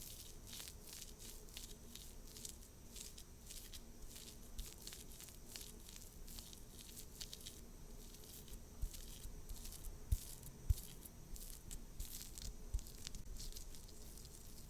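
Makeup products and tools handled close to the microphone: soft crackling, tapping and rustling, with a few dull thumps in the second half.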